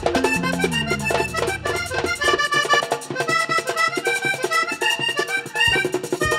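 Live vallenato band playing an instrumental passage: a Hohner button accordion carries a fast melody over steady percussion. A bass line steps downward and then drops out about two seconds in, leaving the accordion and percussion.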